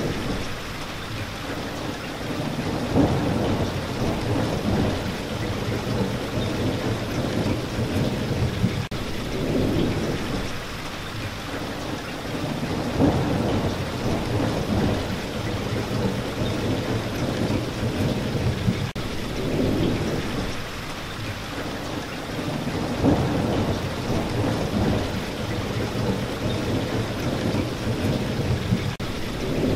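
Steady rain with low thunder rumbling, the rumbles swelling and fading every few seconds.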